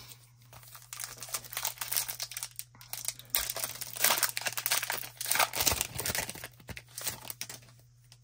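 A foil trading-card pack wrapper being torn open and crinkled by hand, a dense crackling rustle that stops shortly before the end.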